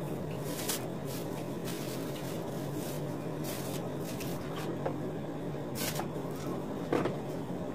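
Quiet intermittent swishing and rustling from hair being combed and sectioned, over a steady low hum.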